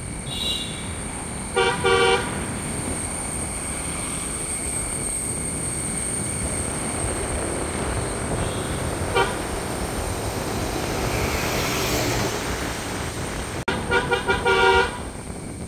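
Car horn tooting: two short toots about two seconds in, a single brief toot midway, and a quick string of short toots near the end, over the steady road and engine noise of a car on the move.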